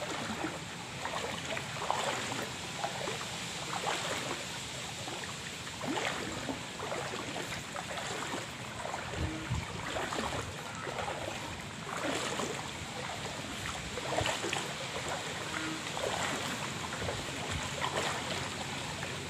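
Floodwater sloshing and splashing with slow wading steps, a soft splash every second or two over a steady watery rush.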